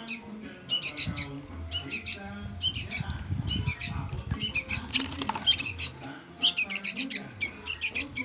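Young pied starlings and sooty-headed bulbuls giving harsh, squawking begging calls while being hand-fed. The calls come in short clustered bursts about once a second.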